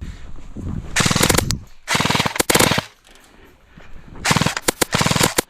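Airsoft gun firing on full auto in three rapid bursts: a short one about a second in, a longer one around two seconds in, and a third near the end.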